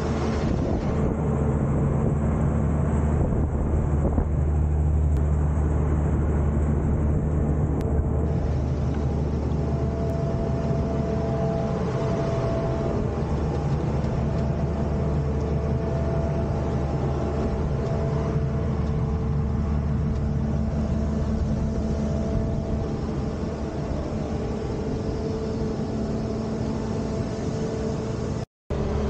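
Case IH combine harvester running steadily: a continuous low engine drone with several steady whining tones from the machinery. The sound cuts out for an instant near the end.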